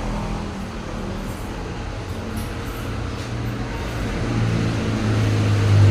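Steady low mechanical hum, like a motor running, that grows louder over the last couple of seconds.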